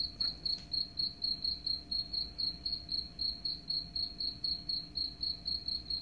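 Recorded cricket chirping played through a smartphone speaker: a high, even chirp repeating about four to five times a second.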